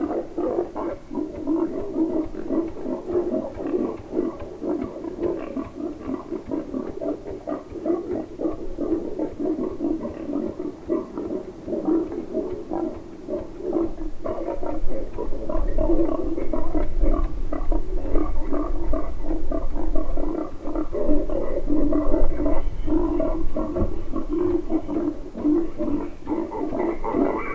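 Wild boar grunting: a steady run of low, pulsing grunts. A low rumble joins them from about halfway through.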